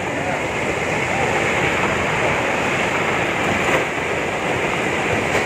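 Flash floodwater rushing in a torrent: a steady, even rushing noise that holds at one level throughout.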